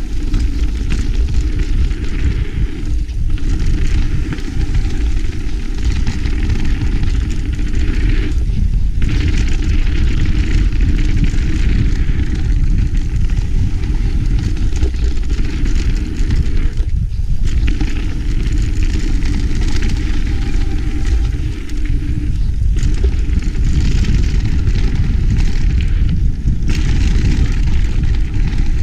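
Wind buffeting a GoPro Hero 5's microphone on a mountain bike descending a dirt trail, mixed with the rumble of tyres rolling over dirt and gravel. Loud and continuous, thinning briefly a few times.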